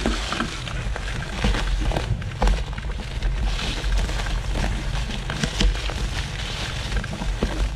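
Mountain bike riding along a trail strewn with storm debris: a steady wind rumble on the microphone, with frequent sharp clicks and crackles from the tyres running over twigs and the bike rattling.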